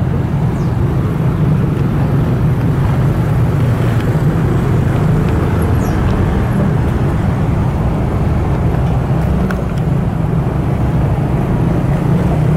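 Street traffic with motorcycles passing one after another: a steady, fairly loud drone of small engines.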